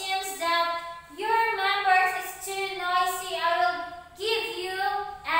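A high, childlike voice singing a song, holding notes and stepping from pitch to pitch.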